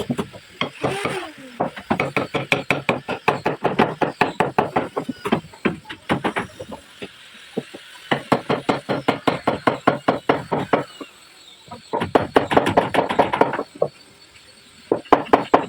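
Rapid knocking on wood, about eight quick taps a second, in runs of several seconds with short pauses between, like a hammer tapping hardwood furniture parts.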